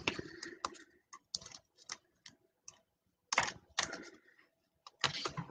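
Trading cards being handled on a table: light clicks and rustles of card stock, with a few louder scraping swishes around the middle and again near the end.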